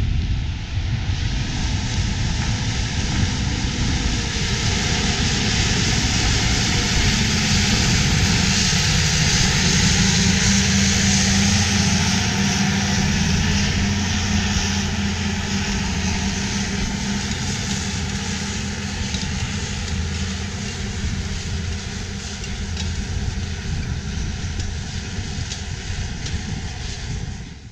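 Versatile 550 Delta Track tractor's 15-litre Cummins diesel running under heavy load while pulling a 14-bottom moldboard plow, over a steady hiss. It grows louder as the tractor and plow pass close, peaking about ten seconds in, then eases as they move away.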